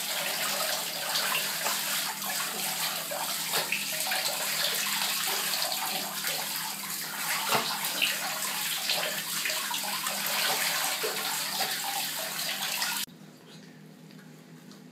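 Handheld shower head spraying water over a wet Yorkshire terrier and splashing into the shower tray, a steady hiss that cuts off abruptly near the end when the water is turned off.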